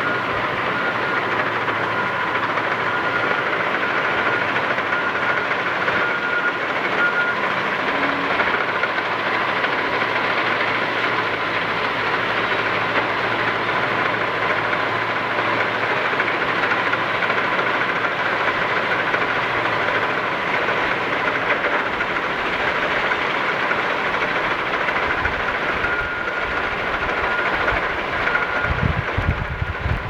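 A bulldozer at work, its steel crawler tracks clattering with a steady thin squeal over the engine noise; a deeper pulsing rumble comes in near the end.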